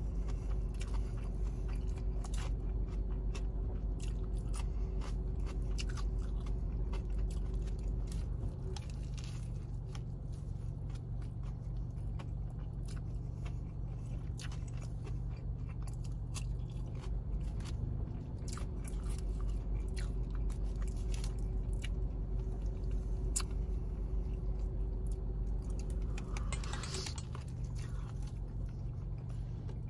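Close-up chewing and biting of a Jollibee spicy fried chicken sandwich: crunches and wet mouth clicks, over a steady low hum.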